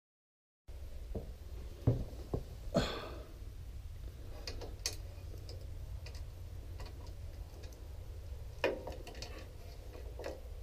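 Scattered metal clicks and clinks of a hand tool working at a lawn-tractor engine's carburetor, the loudest cluster about two seconds in.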